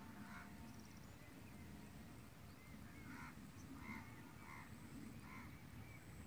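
Faint bird calls: short, pitched calls repeated several times at irregular intervals, over a low steady rumble.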